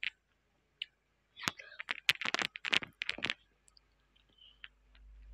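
Close-up mouth sounds picked up by an earphone microphone: a quick run of wet clicks and smacks from eating, about one and a half to three seconds in, then faint sips from a mug near the end.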